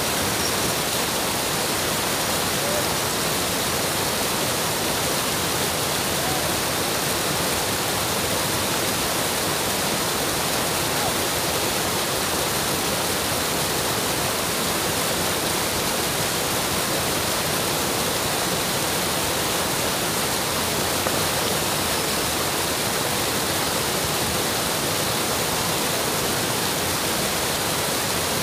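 Water spilling over a small concrete weir into a muddy stream: a steady, even rushing.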